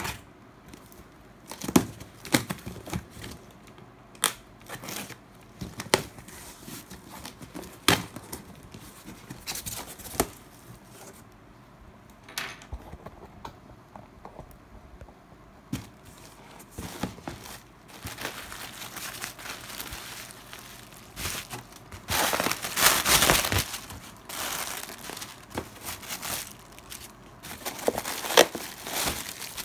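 Cardboard box being opened and its packing handled: packing tape torn, flaps knocked, and bubble wrap and plastic air cushions crinkling and rustling, with a longer, louder spell of rustling about three quarters of the way through.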